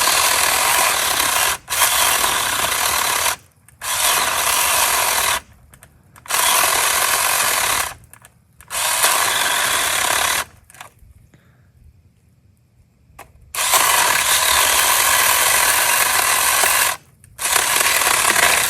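Brookstone 400-watt mini battery-powered electric chainsaw run in repeated bursts of two to three seconds, its small motor and chain whirring as it cuts into pine branches. There is a longer pause of about three seconds in the middle.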